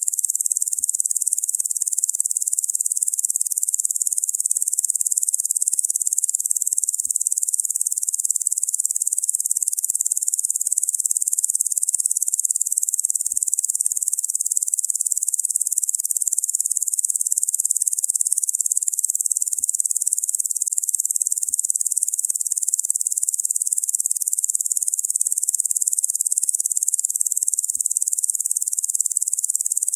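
Locusts making a steady, high-pitched buzzing drone that runs on without a break.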